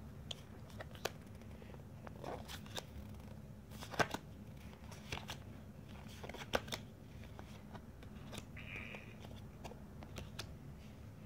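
Pokémon trading cards being handled and flipped through by hand: faint scattered flicks and clicks as the cards slide against each other, the sharpest about four and six and a half seconds in, over a low steady room hum.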